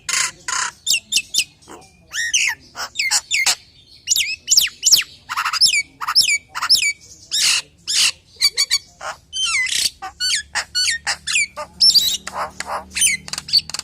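A jalak Nias myna singing in a fast, varied string of loud calls: clear whistles that slide down in pitch, mixed with harsh squawks and short chatters.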